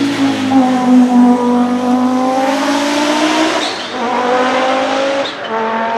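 Audi 90 Quattro IMSA GTO's 2.2-litre turbocharged five-cylinder engine accelerating hard past and away. Its pitch climbs through the gears, with two upshifts about two-thirds of the way in and near the end, each marked by a short turbo chirp.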